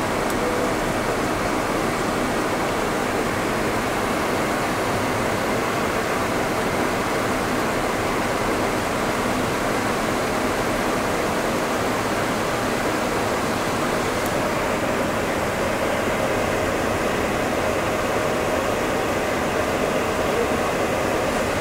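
Steady rushing cabin noise on the flight deck of an Embraer E195 in flight on approach: airflow and air-conditioning hiss, with a few faint steady tones underneath.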